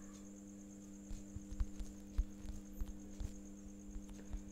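Steady low electrical hum, with irregular soft thumps and faint clicks starting about a second in.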